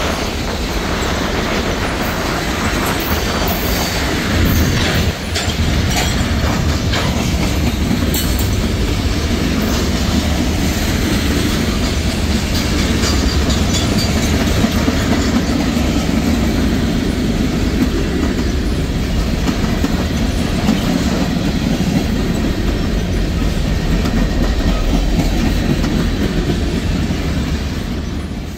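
Freight cars of a CSX mixed freight train rolling past on steel wheels: a steady rumble with clickety-clack as the wheels cross rail joints. The sound starts fading near the end.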